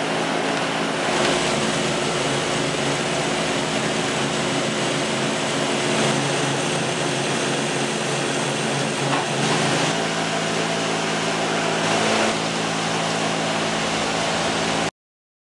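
Powermatic 11-inch metal lathe running under power, its 1.5 hp motor and gearing giving a steady hum while the tool turns down a metal bar. The sound stops abruptly near the end.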